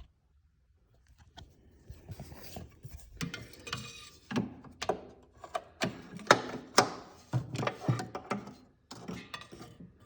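Irregular clicks, rattles and knocks of hands and a tool working down inside a snowmobile's chassis. They begin about a second in, come at an uneven pace, and have short quiet gaps between them.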